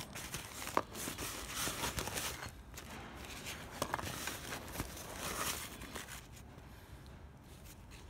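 Rustling and crinkling of a padded nylon camera bag being rummaged by hand among lenses and lens cases, with a few light knocks and clicks.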